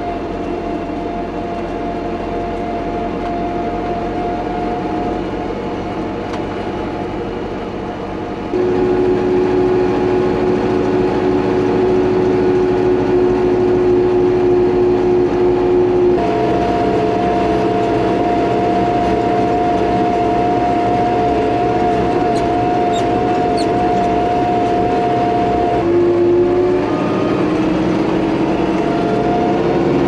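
Tractor running while being driven, heard from inside its cab: a steady engine note with a whine over it. It gets louder and the whine jumps to a new pitch about a third of the way in, shifts again about halfway and near the end, then rises as it speeds up.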